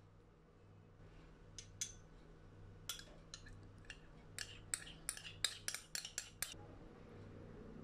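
Metal teaspoon clinking and scraping against a small glass dish while ketchup is scooped out, a quick run of light clinks that comes faster toward the end.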